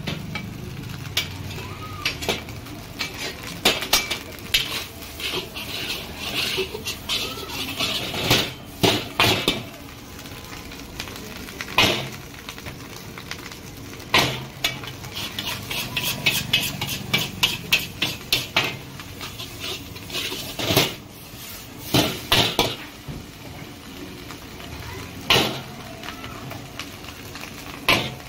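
Metal spatula clanging and scraping against a wok as fried rice is stir-fried, with sharp strikes in irregular clusters over a steady sizzle.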